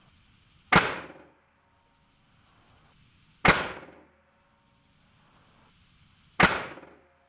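Custom-built .22 PCP air rifle firing 42-grain slugs: three shots about three seconds apart, each a sharp report with a short fading tail.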